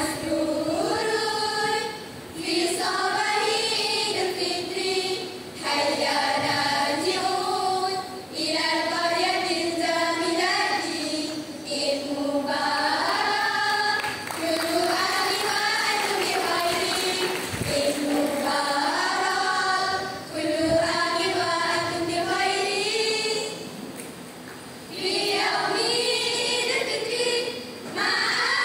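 A girls' choral speaking group reciting in unison in Arabic, in melodic, chant-like phrases of a few seconds each with brief breaks between them and a slightly longer pause about 24 seconds in.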